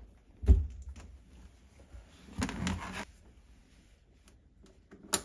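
Hands working plastic water tubing into a push-in fitting on an under-sink reverse osmosis unit. There is a dull bump about half a second in, a short rustle of tubing in the middle, and a single sharp click near the end.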